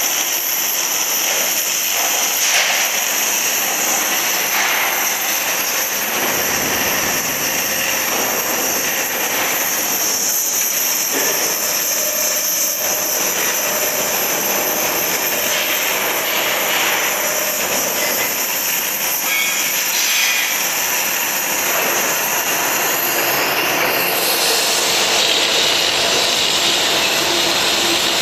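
Oxy-fuel cutting torch of a CNC cutting machine cutting through 10 mm St3 steel plate, with the steady, loud hiss of the cutting oxygen jet and flame. The high-pitched part of the hiss shifts a few seconds before the end.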